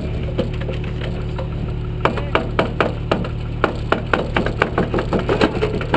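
Off-road vehicle's engine running steadily under the camera, joined from about two seconds in by a quick, uneven string of sharp clicks and knocks, about three or four a second.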